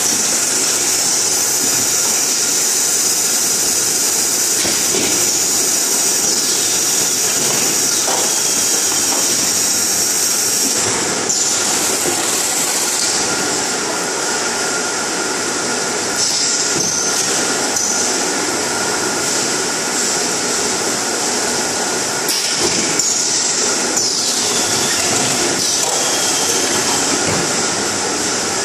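Automatic carton case-packing line running: steady machinery noise of the case packer and conveyors, with a constant high hiss and a few scattered knocks and clacks.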